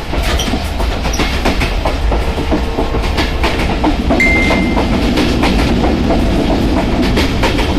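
Passenger train of PT INKA-built coaches running past close by, with a loud steady rumble and repeated sharp clicks of wheels over rail joints. A brief high squeal comes about four seconds in.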